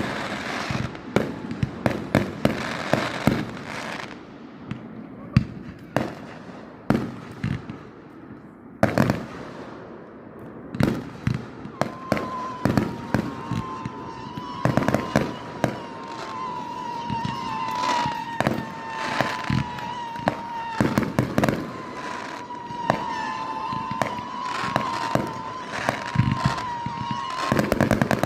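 Aerial fireworks going off: many sharp bangs from salute shells, some in quick clusters and others spaced out. About halfway through, a steady high whistle starts, wavering slightly, and runs under the bangs until near the end.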